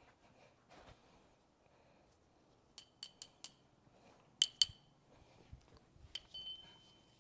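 Sharp clinks of small hard objects striking each other: four quick clinks, then two louder ones, then a last one that rings on for about a second.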